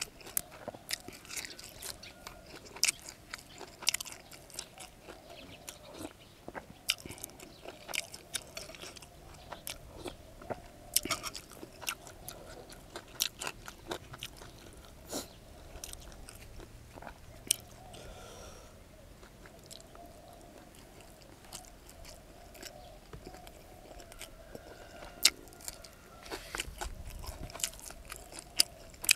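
A person eating close to the microphone: wet chewing with irregular sharp crunches, as bites of shrimp laab and fresh kradon leaves are chewed.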